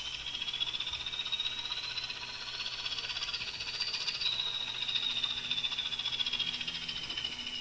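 Model diesel locomotive running: a high whine that rises slowly in pitch for about four seconds, then drops and falls again, over a fast light rattle.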